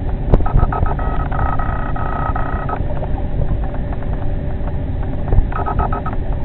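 Fishing reel buzzing with fast ticking on a line to a hooked big catfish: once for nearly two seconds, then again briefly near the end, over a steady low rumble.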